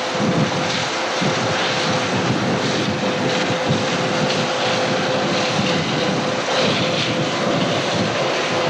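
John Deere 9600 combine running steadily: a constant mechanical noise with a steady whine held at one pitch.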